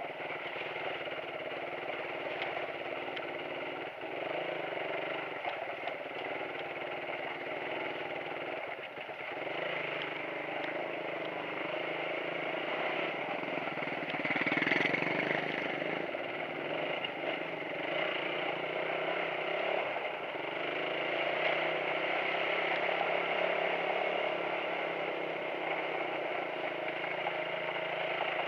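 Motorcycle engine running steadily while riding over a rough rocky road, with occasional knocks and rattles from the bumps. About halfway through, another motorcycle passes close by and the sound briefly gets louder.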